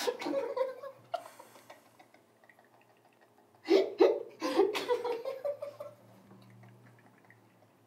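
A person's short, hiccup-like vocal sounds: one burst at the start, then a quick cluster of them about four seconds in.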